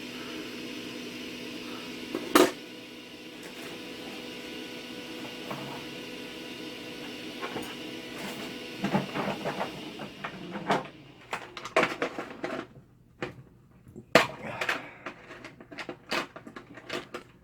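A steady machine hum, like a small fan on the workbench, runs and then stops about ten seconds in. After one sharp click early on, a string of clicks, taps and knocks follows as small tools and parts are handled on the bench.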